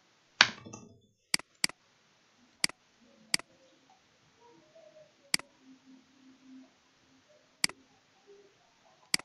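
Computer mouse button clicking: single sharp clicks every second or two, with a quick pair about a second and a half in. There is also one louder, duller thump about half a second in.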